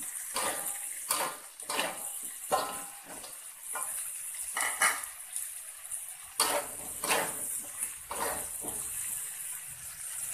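Metal spatula scraping and clacking against a wok as pieces of squirrel meat and sliced ginger are stir-fried, in irregular strokes about one or two a second, over a steady sizzling hiss of the hot oil.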